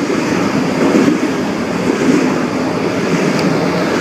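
A freight train and a Waratah electric passenger train passing through a station: a loud, steady rumble of wheels on rail.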